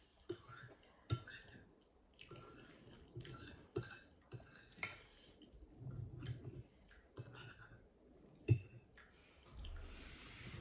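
Metal fork clinking and scraping on a ceramic plate several times while soft lasagna is chewed close to the microphone, with a short hiss near the end.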